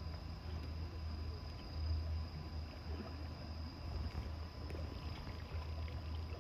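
Low, steady engine hum with a slight pulse, overlaid by a faint, thin, high whine.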